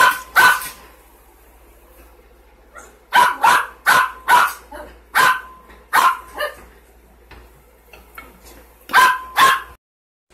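A dog barking: about a dozen short, sharp barks in clusters of two or three, with gaps of a second or two between clusters.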